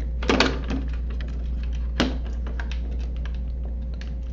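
Scattered light clicks and taps of hands handling a multimeter, its test probes and resistor leads on a workbench, with a brief louder rustle near the start and a sharp click about two seconds in. A steady low hum runs underneath.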